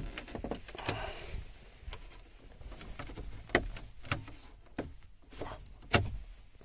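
Plastic trim on a 2012 Jaguar XJ's center console being pried with a plastic pry tool: scattered sharp clicks and snaps as the bezel's friction clips give way, with some rubbing and handling noise.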